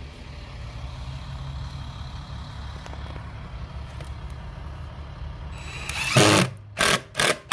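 Cordless power driver driving a screw into the skiving machine's hinge plate: one longer run about six seconds in, then short trigger bursts about three a second as the screw seats. A low steady hum is heard before it.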